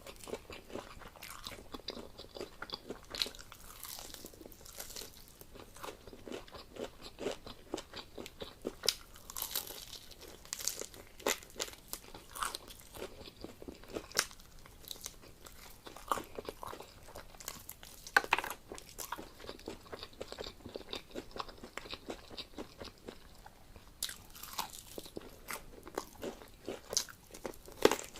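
A person eating close to the microphone: irregular crunching, biting and chewing sounds, with occasional louder crackles, as fried chicken and noodles are eaten by hand.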